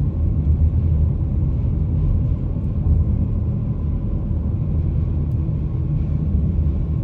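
Steady low road and engine rumble inside the cabin of a BMW X5M E70, its 4.4-litre twin-turbo V8 cruising on a snowy mountain road.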